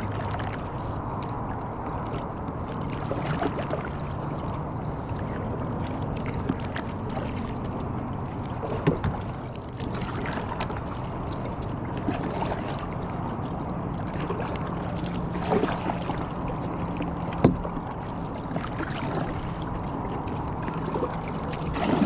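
Kayak on the water: water and hull noise with a faint steady low hum underneath, and a few sharp knocks against the boat, the loudest about two-thirds of the way through.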